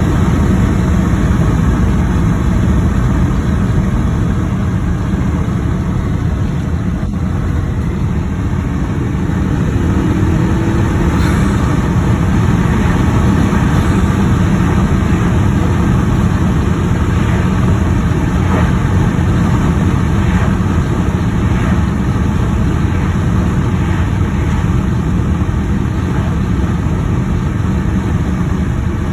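2018 Mazda 6 Signature with its 2.5-litre turbocharged four-cylinder and a Corksport short ram intake, driving at a steady pace. Engine and road noise make an even, deep rumble with no clear revving.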